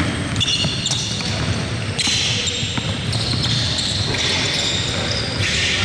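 A basketball bouncing on a gym court during play, with short high squeaks at several moments.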